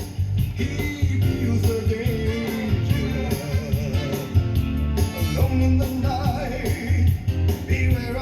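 Background rock-and-roll music with a steady beat and a singing voice.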